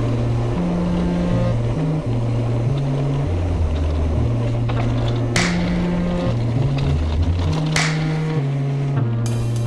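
Background music: a sustained bass line moving in steps between low notes, with two short cymbal-like crashes, one about halfway through and another near the end.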